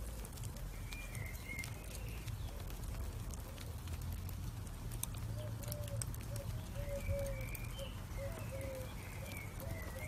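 Burning charcoal with sparse faint crackles over a steady low rumble. Bird calls sound over it: short repeated low notes from about five seconds in, and a higher wavering call near the start and again near the end.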